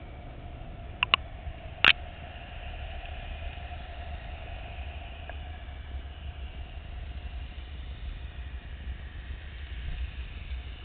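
Underwater ambience picked up by a camera beneath the water: a steady low rumble with a faint hum above it, broken by a few sharp clicks about one and two seconds in.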